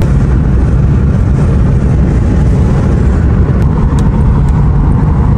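Steady low rumble of a moving vehicle, loud and unbroken, with a few faint ticks over it.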